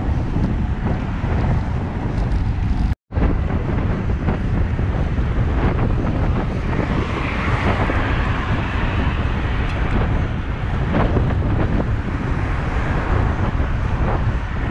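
Wind buffeting the microphone of a bike-mounted camera, with steady road rumble as the bicycle rolls along. A car passes close alongside about halfway through, and the sound cuts out for a split second about three seconds in.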